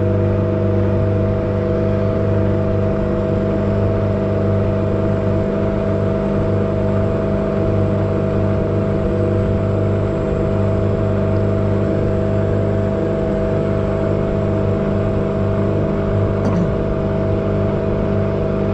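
Outboard motor of a small boat running steadily at cruising speed, a constant hum with no change in pitch.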